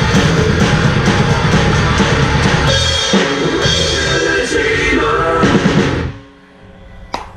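Acoustic drum kit played hard along with a metal song's recording, with bass drum, snare and cymbals. The playing and music stop abruptly about six seconds in, leaving a couple of sharp clicks near the end.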